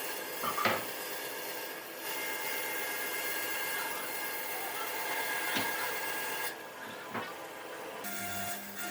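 A power tool running steadily on wood, with a few sharp knocks: one about half a second in and two more in the second half.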